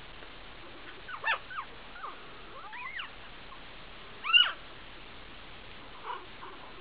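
Young puppies whimpering in short, high, rising-and-falling cries: a cluster about a second in, another around three seconds, the loudest near four and a half seconds and a faint one near the end.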